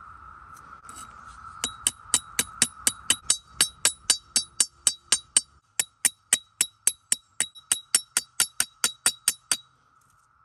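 Spine of a steel machete struck rapidly against a black stone to throw sparks into a tinder bundle: sharp ringing metallic clicks, about four a second, that stop about a second before the end. A steady cricket-like insect drone runs underneath.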